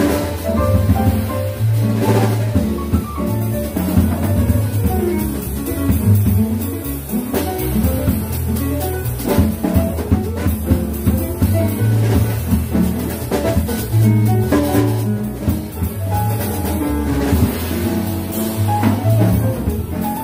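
Live jazz combo playing: double bass carrying a moving low line under piano, with a drum kit keeping time.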